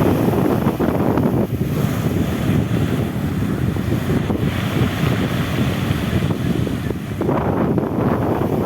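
Strong wind buffeting the microphone, with ocean surf washing on the shore behind it. The gusts ease a second or two in and pick up again near the end.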